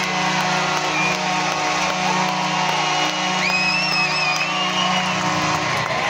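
Hockey arena goal celebration: the goal horn's low steady drone sounds under rock goal music over the PA and a cheering crowd. The horn cuts off shortly before the end.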